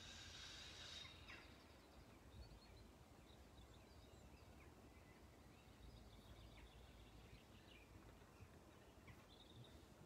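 Near silence: faint background rumble with scattered faint, short, high chirps like distant birds, a brief cluster of them in the first second.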